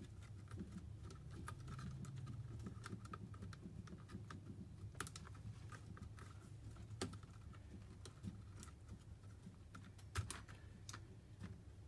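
Small plastic clicks and taps of hands unplugging cable connectors and handling parts inside an opened HP EliteBook 840 G3 laptop, with sharper clicks about five, seven and ten seconds in. A low steady hum runs underneath.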